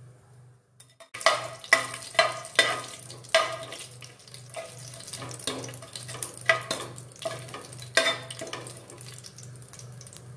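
Whole spices frying in hot oil in an aluminium pressure cooker, sizzling while a long steel spoon stirs them, clinking and scraping against the pot over and over from about a second in.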